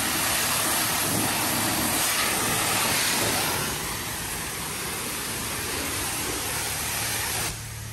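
High-pressure washer wand spraying a steady jet of water onto a pickup truck's chrome bumper, grille and body panels, a continuous hiss that cuts off suddenly shortly before the end.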